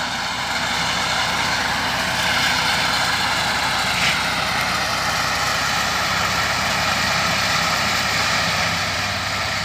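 Small engines of hay-mowing machines running steadily as they cut grass, a continuous even drone with no let-up.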